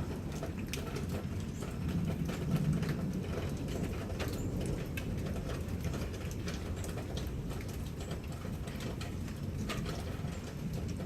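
Raindrops dripping and pattering in scattered clicks over a steady low rumble of a thunderstorm, the rumble swelling briefly about two seconds in.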